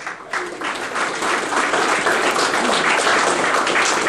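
Audience applauding, a steady clatter of many hands clapping that builds up in the first second.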